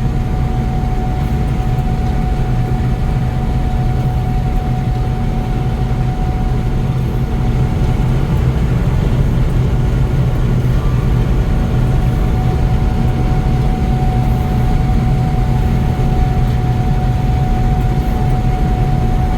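Gleaner N6 rotary combine running steadily while harvesting wheat: a constant low engine and machinery drone with a steady high whine over it.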